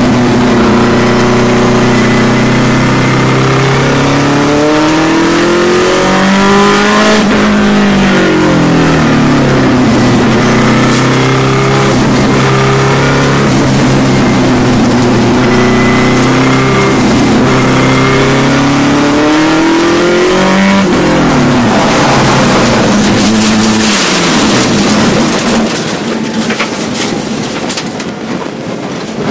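Racing car engine heard from inside the cockpit, revving hard with its pitch climbing and dropping again and again through the gears. About two-thirds of the way in the steady engine note breaks into a sudden rough, noisy stretch, typical of the car spinning on the wet track, and near the end the engine falls to a quieter, lower sound.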